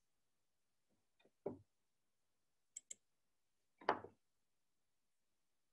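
Near silence broken by a quick double click of a computer mouse a little before the middle, with two faint short soft sounds, one before the clicks and one after.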